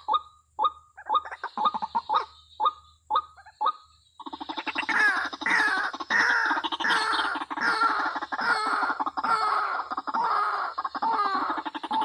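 White-breasted waterhens calling: short separate calls about two a second, then from about four seconds in a dense, unbroken string of repeated overlapping ruak-ruak calls.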